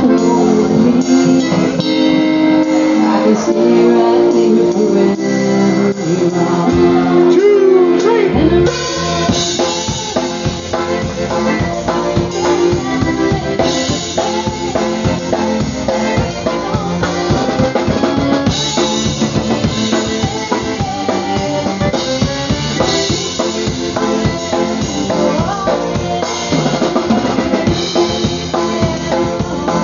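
Live polka band music: a button concertina with drum kit, guitar and vocals. About eight seconds in, the held notes give way to a steady drum beat.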